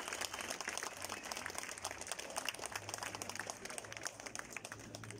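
Audience applause dying away, the dense clapping thinning to scattered claps.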